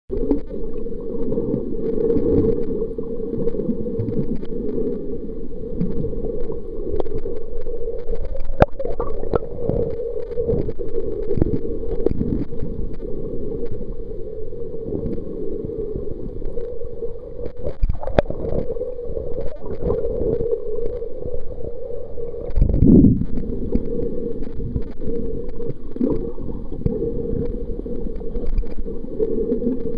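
Underwater sound through a waterproof camera: a steady, muffled low rush of water moving over the camera, with scattered faint clicks, two sharper clicks, and a louder low thump about three quarters of the way through.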